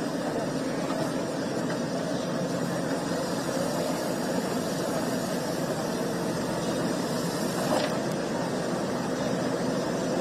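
JCB backhoe loader's diesel engine running steadily, with a single knock about three-quarters of the way through.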